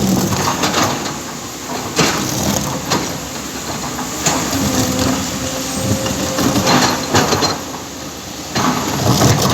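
Excavator at work: its diesel engine runs steadily under irregular heavy knocks and breaking noises from the machine handling material.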